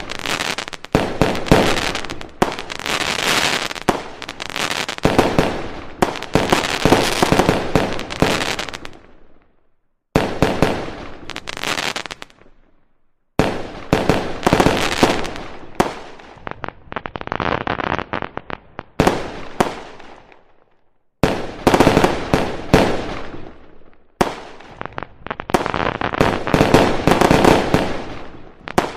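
Fireworks display: aerial shells and comets bursting in rapid, overlapping volleys of bangs and crackles. The volleys cut off abruptly into brief silence three times, at about ten, thirteen and twenty-one seconds in.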